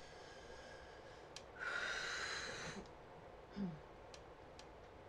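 A person lets out a long breath, a sigh, about one and a half seconds in, lasting about a second. A brief low falling vocal sound follows near the end, with a few faint ticks.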